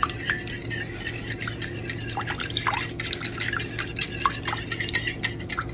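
Wire whisk beating a runny mixture of buttermilk, milk, egg and melted butter in a ceramic bowl: a quick, continuous run of wet clicks and slaps as the tines hit the liquid and the bowl.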